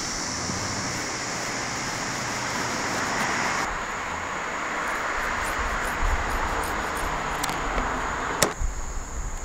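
Outdoor ambience: a steady rushing noise like distant traffic, with a steady high insect drone above it. A couple of sharp clicks come near the end, and the rush cuts off suddenly about eight and a half seconds in.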